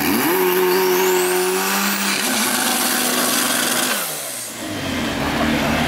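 Car engine at high revs, its pitch held steady with a step about two seconds in, then falling away about four seconds in as the car passes.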